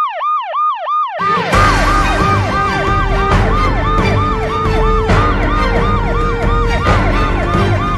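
Electronic yelp siren whooping rapidly up and down, about three to four sweeps a second. About a second in, a bass-heavy music track with a strong hit roughly every two seconds comes in under it.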